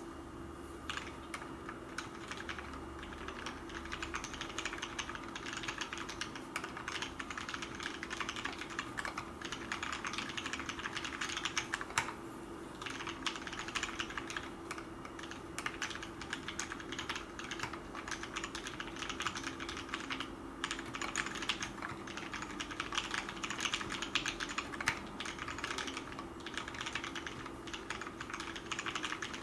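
Continuous fast typing on a custom mechanical keyboard with Cherry MX Brown switches: a dense stream of key clicks, with a short pause near the middle.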